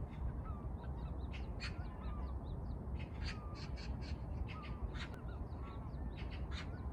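A large flock of migrating birds flying over in long V-formation lines, calling again and again in many short overlapping calls. A steady low rumble of wind on the microphone runs underneath.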